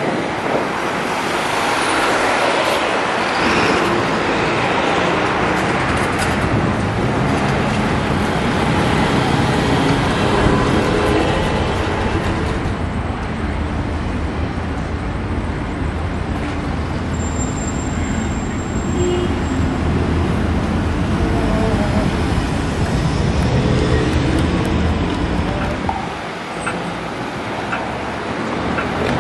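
City street traffic noise: cars and buses passing through an intersection, with a brief high squeal a little past the middle.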